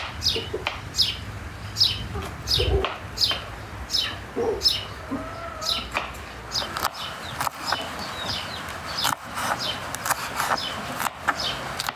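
A small bird chirping over and over in quick falling notes, about two a second, through the first half, with a few low chicken clucks around the middle. From about halfway a knife chops bell peppers on a wooden cutting board in a steady run of sharp taps.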